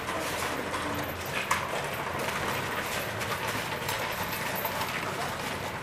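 Horse hooves clip-clopping on a paved street amid clattering footsteps.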